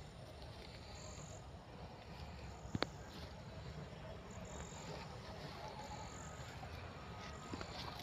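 Crickets chirping in short high trills every second or two over a faint steady hiss, with two sharp clicks close together about three seconds in.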